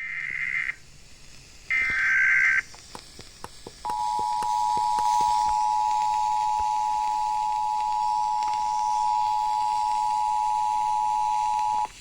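Emergency Alert System broadcast: two buzzy bursts of SAME header data, a few crackling clicks, then the steady two-tone EAS attention signal (about 853 and 960 Hz together), held for about eight seconds and cutting off just before the end.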